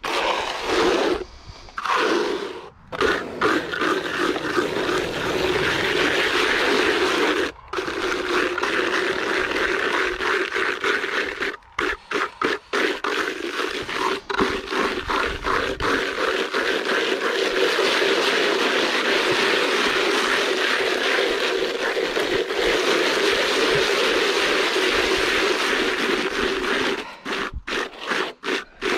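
A hand tool scraping and rubbing render across a wall in continuous back-and-forth strokes, with short breaks about seven and twelve seconds in and choppier, broken strokes near the end.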